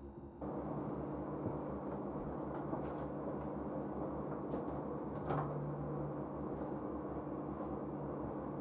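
Steady rumbling drone of raw NASA solar sonification, the Sun's vibrations turned into sound, cutting in abruptly about half a second in and holding at an even level, with faint clicks scattered over it.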